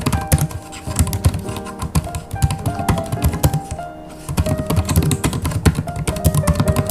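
Typing on a Hansung BK300 Bluetooth keyboard's low-profile scissor-switch (pantograph) keys: a quick, continuous run of soft, quiet key clicks, with a brief lull about four seconds in. Background music plays throughout.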